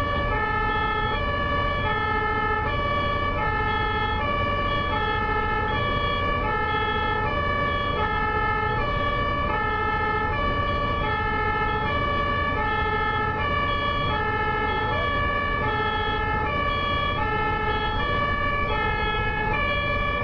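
German ambulance two-tone siren (Martinshorn) sounding continuously, switching back and forth between a high and a low pitch about every three quarters of a second, over a steady rumble of road traffic.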